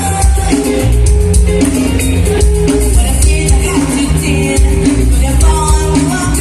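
Live band playing upbeat Latin-style music with loud bass, percussion and singing.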